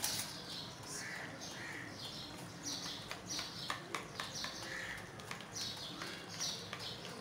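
Small birds chirping over and over, short high chirps about two a second, with scattered faint clicks.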